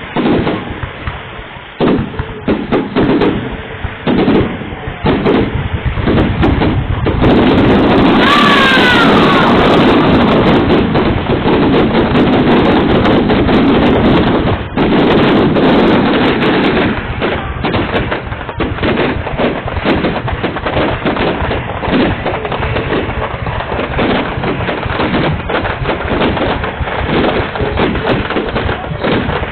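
Fireworks going off: a dense run of bangs and crackling, heaviest from about 7 to 17 seconds in, with a falling whistle about 8 seconds in, then scattered pops and crackles.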